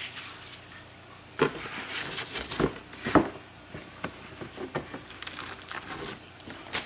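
Crinkling and rustling of a small plastic catnip packet and paper packaging handled over a cardboard cat scratcher, in a few short separate bursts, the loudest about three seconds in.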